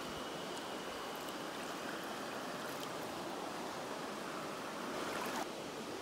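Shallow, stony river current running steadily over rocks, with a brief louder splash near the end as a small trout is lifted from the water by hand.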